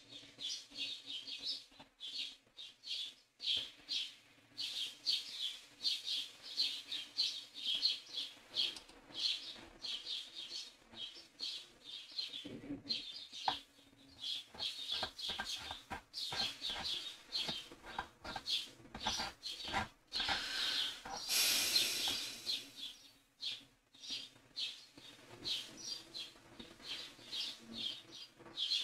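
Birds chirping, short high chirps repeating several times a second without a break. A brief rush of noise comes a little past the middle.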